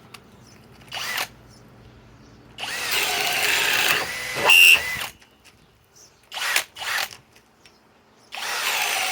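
Master Force brushless boost hammer drill boring with a 3/4-inch spade bit, run in bursts on the trigger. A short burst comes about a second in, then a longer run of about two seconds with a loud peak just before it stops. Two quick bursts and another run follow, each starting with a rising whine.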